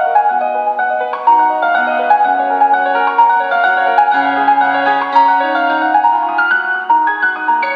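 Instrumental music played on a Funelego D85 mini Bluetooth speaker: a quick run of short piano and mallet-like notes, with little deep bass.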